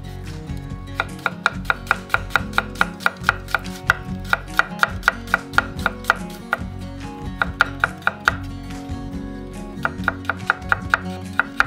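Kitchen knife slicing a garlic clove thinly on a wooden cutting board: quick, even taps of the blade against the wood, about four a second, starting about a second in and pausing briefly twice in the second half.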